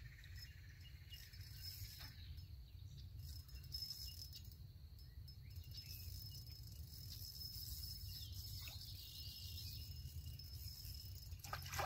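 Outdoor ambience: a steady, thin, high-pitched insect trill over a low rumble of wind on the microphone.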